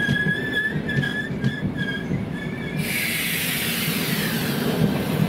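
Double-decker passenger train coaches rolling past at speed, with a rumble of wheels on rail and short, broken high-pitched wheel squeals. A little over halfway through, a loud hiss sets in.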